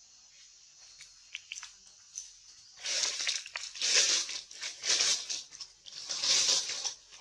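Rustling, crackling noise in four loud bursts about a second apart, starting about three seconds in, like leafy branches being jostled, over a steady high insect drone.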